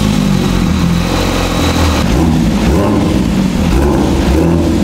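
Porsche 911 S/T's 4.0-litre naturally aspirated flat-six running just after being started, a steady engine note whose pitch shifts a little.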